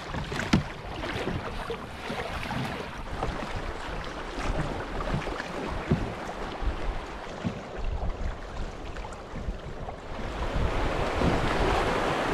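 Fast, choppy river water rushing and slapping against a canoe hull as it moves downstream, with wind buffeting the microphone. A splash about half a second in as the canoe is pushed off the stony bank, and the rushing water grows louder near the end as the canoe enters rougher water.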